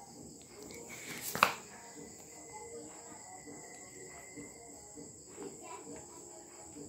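Steady high-pitched insect trill, like crickets, with one sharp knock about a second and a half in.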